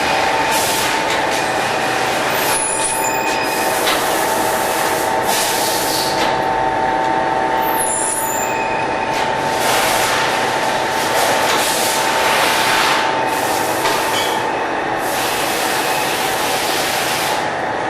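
Tray-type vial washing machine running: a steady machine hum with repeated hissing jets, each lasting half a second to a second and a half, coming at irregular intervals.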